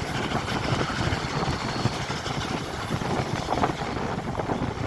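Peppercorn A1 class steam locomotive 60163 Tornado, a three-cylinder Pacific, running with its train on a steep gradient. Its rapid exhaust and rail noise are steady and continuous.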